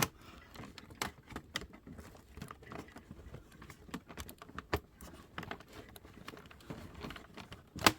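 Scattered small clicks and taps of plastic laptop parts being handled and pressed while a component is worked into place during reassembly, with a sharper click about three-quarters of the way through and another near the end.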